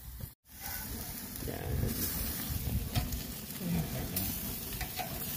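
Whole mackerel sizzling on a gas grill, a steady hiss of fat and juices cooking on the grate, with a few light clicks as metal tongs turn the fish. The sound drops out for a moment about half a second in.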